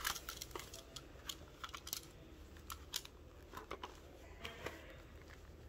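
Faint, scattered plastic clicks and taps as the magazine of a Nerf Rival Finisher XX-700 blaster is handled and fitted into its magazine well.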